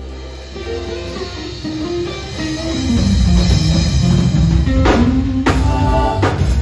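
Live zydeco band playing, with electric bass, keyboard, drum kit and electric guitar. A run of notes steps down through the low register, the band gets louder about three seconds in, and cymbal crashes come near the end.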